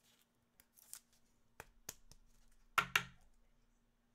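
Trading cards and their packaging being handled: light scattered clicks and snips, with the two loudest, sharper clicks close together near the end. A faint steady electrical hum lies underneath.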